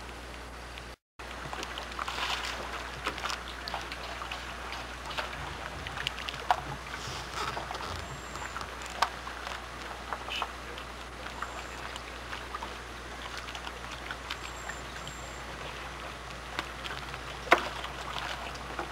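Light water lapping with scattered small knocks and clicks, one louder knock near the end, over a steady low hum. The sound drops out completely for a moment about a second in.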